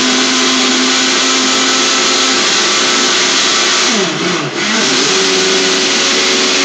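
Countertop electric blender running at speed, blending a chocolate mousse mixture: a loud, steady motor whir. About four seconds in, the motor's pitch drops briefly and climbs back up.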